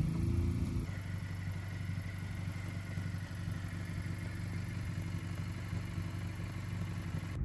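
Honda Civic Si's 1.5-litre turbocharged four-cylinder engine idling steadily, a little louder and fuller for about the first second as the car settles after rolling to a stop.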